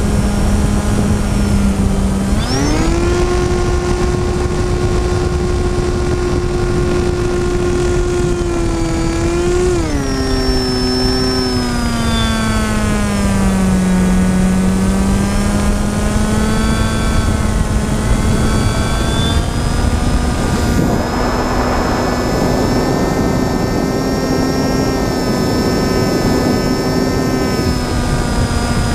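FPV drone's motor and propeller whine over a rush of wind noise, its pitch changing with the throttle. The pitch jumps up sharply a couple of seconds in and holds there, drops back near the ten-second mark, and dips lowest around fourteen seconds. It then climbs slowly back up and stays steady.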